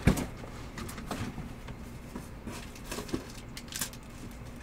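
Trading cards being handled at a table: a sharp tap as a card is set down at the start, then light clicks and rustling as more cards are handled.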